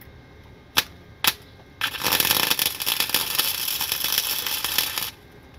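Flux-core wire-feed welding arc from a Harbor Freight Titanium Flux 125 welder, tacking onto a car's exhaust pipe overhead. Two brief crackles about a second in, then a steady loud crackling arc for about three seconds that cuts off suddenly.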